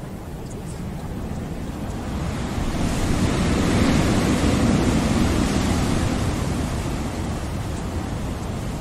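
Ocean waves washing in: the surf swells about three seconds in, peaks, then slowly eases off.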